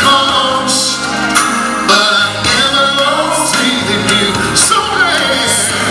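Live gospel music: a band with bass and drums behind a male lead vocalist singing long, bending lines into a microphone.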